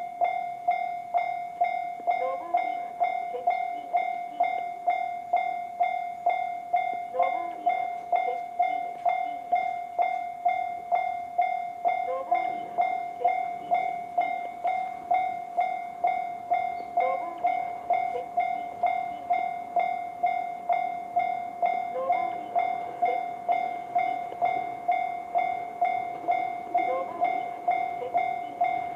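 Japanese level-crossing warning bell in the JR standard electronic tone, ringing steadily at about two strikes a second.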